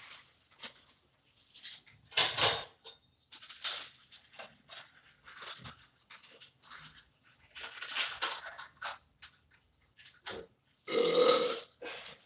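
Irregular rustling, clinking and handling noises from hands working food on a sheet pan, with a short low vocal sound, like a grunt or hum, about eleven seconds in.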